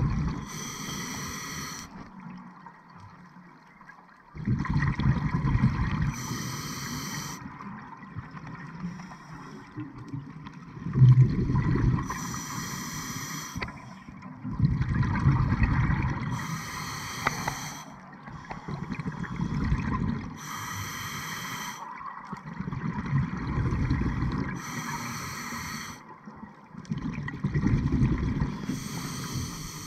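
Scuba diver breathing through a demand regulator underwater: a short hiss of inhaled air through the regulator, then a longer low bubbling of exhaled air, repeating about every four seconds for some seven breaths.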